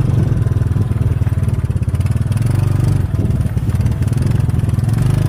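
Motorcycle engine running steadily at low speed, heard from the bike itself: a low drone with a fast, even putter.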